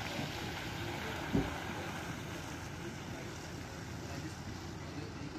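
Wind blowing across a phone microphone as a steady rushing noise, with one brief low thump about a second and a half in.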